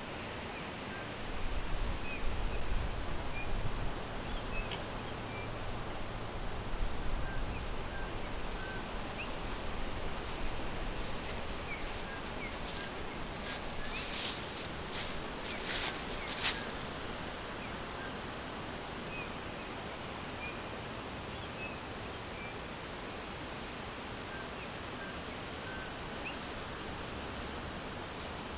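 Forest ambience: a steady rustling hiss with faint, scattered short chirps from small birds throughout. A low rumble swells in the first several seconds, and a few sharp crackles come between about 14 and 16 seconds in.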